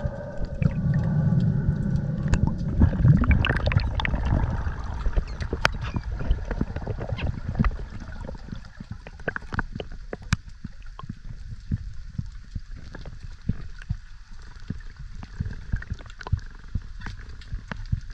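Underwater sound as picked up by a camera in a waterproof housing: a low, muffled water rumble with gurgling and many scattered sharp clicks, plus a steady droning tone over the first few seconds that then fades.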